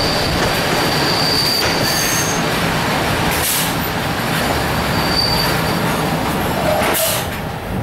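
Passenger train running on the rails, heard from an open carriage window: a steady rumble of wheels and running gear, with a thin high wheel squeal that fades in and out. A few sharp knocks come from the wheels over rail joints, and the noise eases a little near the end.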